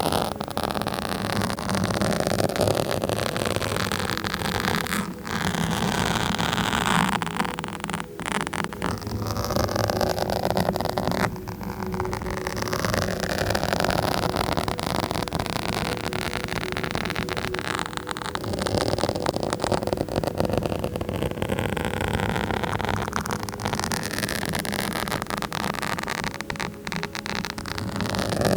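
Scratching directly on a microphone: a dense, continuous scratchy noise that swells and fades in slow sweeps.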